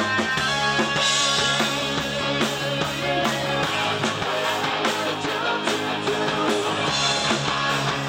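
Live rock band playing a cover song: distorted electric guitar, bass guitar and a drum kit with steady beats and cymbal crashes.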